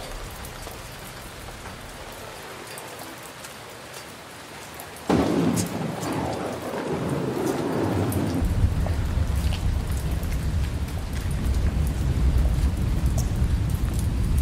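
Steady rain, then a sudden thunderclap about five seconds in that fades into a continuous low rolling rumble of thunder.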